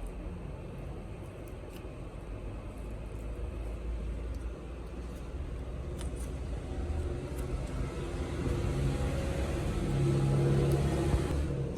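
A low engine rumble that builds over several seconds, with a steady low hum strongest near the end, then drops off.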